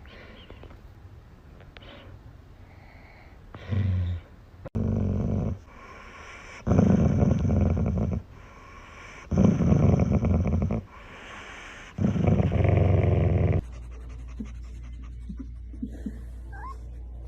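A dog making loud, rasping, noisy sounds in a run of five long bursts, each about a second or more, coming roughly every two and a half seconds. After that there is only a steady low hum.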